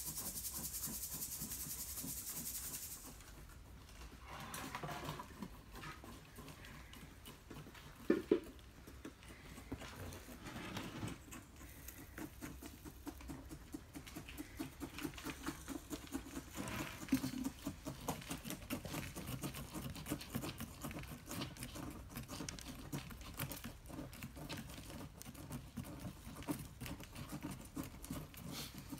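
Granular bonsai soil being poured from a metal soil scoop into a shallow bonsai pot and worked in with a chopstick: a run of small, irregular gritty ticks and patters. A hiss sits over the first few seconds, and one sharp knock comes about eight seconds in.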